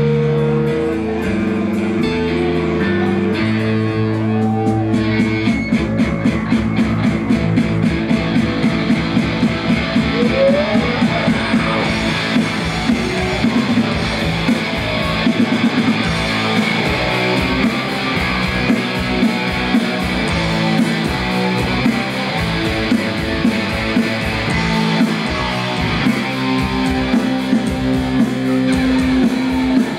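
Live punk rock band playing an instrumental passage with electric guitars and bass. It opens on held chords, and a fast, driving beat comes in about five seconds in.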